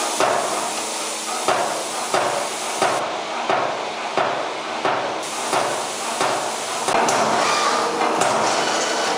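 Finnpower F5-25 SB CNC turret punch press punching sheet metal: sharp punch strokes repeat about every two-thirds of a second over the machine's steady hum, merging into a denser run of noise near the end.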